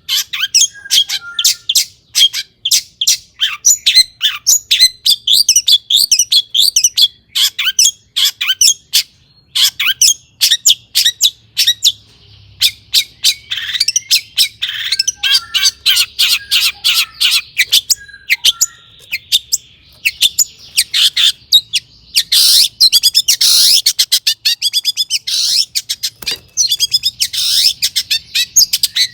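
Long-tailed shrike (cendet) singing a fast, varied string of sharp chirps and trills, with harsher rasping notes in the last third.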